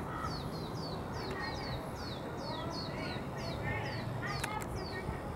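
Lesser goldfinch fledglings begging for food: a quick series of short, high, downward-slurred calls, about three a second. Two sharp clicks come about four and a half seconds in.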